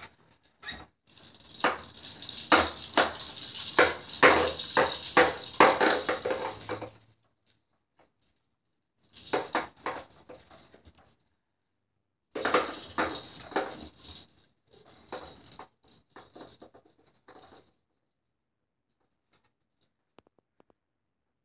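Plastic toys and beads on a Fisher-Price baby jumper's tray rattling and clattering in four bursts as the baby bounces and plays. The first burst is the longest and loudest, and it goes quiet shortly before the end.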